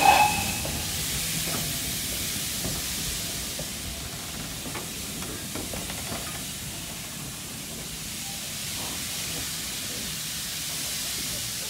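Steady steam hiss from a steam-hauled train of vintage carriages rolling slowly past, with faint scattered clicks from the running gear. A brief loud tone sounds right at the start.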